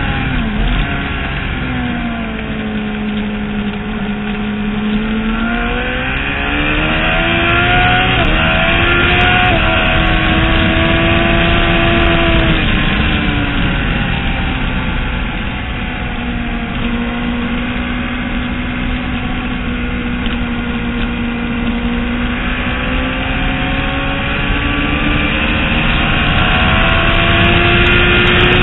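Motorcycle engine at track speed, heard from onboard, its pitch sinking and climbing through corners and shifts. The pitch drops in the first few seconds, climbs back by about eight seconds in, holds, falls again after about twelve seconds, and rises slowly near the end. A steady rushing noise runs underneath.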